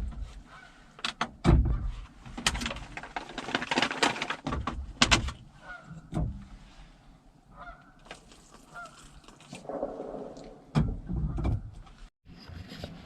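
Geese honking in short calls, mixed with sharp clicks, knocks and rustles from handling a food pouch and camp gear.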